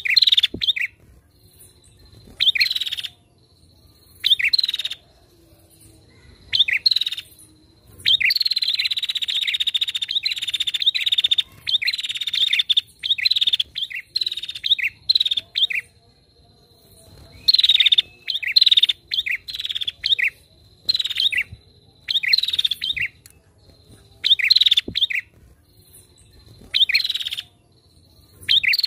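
Female prinia (prenjak) calling in bursts of fast, high chattering notes, some drawn out into trills of about three seconds, with short pauses between the bursts.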